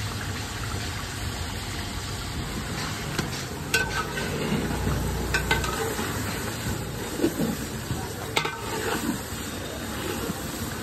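Chicken pieces sizzling in oil in a large aluminium pot as the chicken's own water cooks off, stirred with a long metal ladle. The ladle scrapes through the pieces and knocks sharply against the pot about three times.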